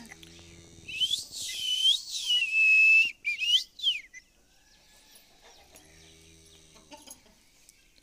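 Rose-ringed parakeet whistling: a run of loud, high swooping whistles that dip and rise, with one longer held note, from about a second in until about four seconds in.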